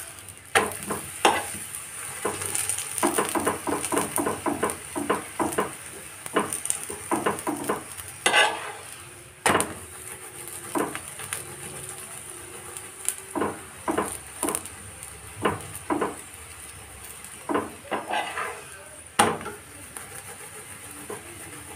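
Methi paratha frying in ghee on a tawa, with a steady sizzle. A metal spoon taps and scrapes many times against the bread and pan as it spreads the ghee.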